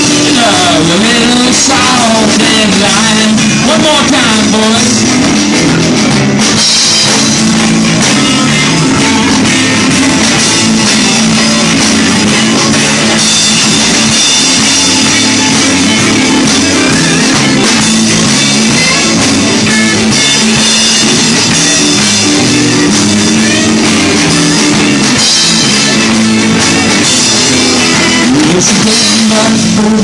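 Live rock band playing loudly and steadily: electric guitars, bass guitar and drum kit.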